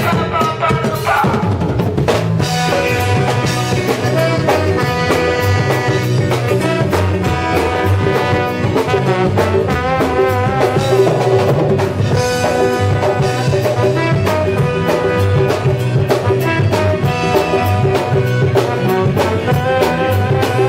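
Instrumental passage of a band song: a brass section plays held and wavering melody lines over drum kit and bass.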